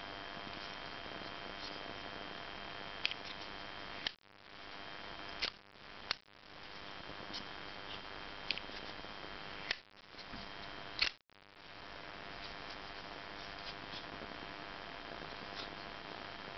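Kershaw Echelon folding knife being worked open and shut in the hand: about seven sharp metallic clicks, scattered irregularly, as the blade snaps into place, the loudest about eleven seconds in. A steady faint hiss runs underneath.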